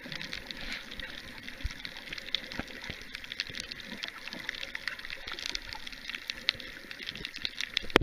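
Underwater ambience picked up by a submerged camera: a steady, muffled water hiss with many small crackling clicks throughout.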